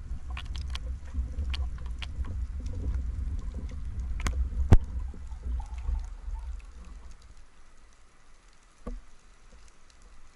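Underwater sound of a freediver swimming up to the surface: a low rumble of moving water with scattered clicks and ticks, and one sharp click a little before the middle. The rumble drops away about two-thirds through, leaving quieter water noise.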